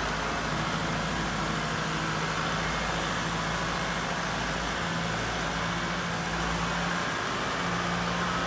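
Compact tractor's engine running steadily under load as its front loader lifts a sand-laden tarp, the engine note dipping briefly a couple of times.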